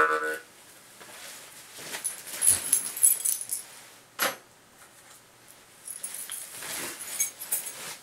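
A jaw harp's twanging note stops just after the start. Then come scattered rustling and light metallic jingling in two spells, with a single sharp click about four seconds in.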